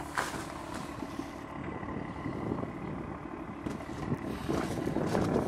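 BMW M2's N55 straight-six, fitted with a Scorpion full exhaust and catless downpipes, idling steadily. Footsteps crunch on gravel over it and grow louder near the end.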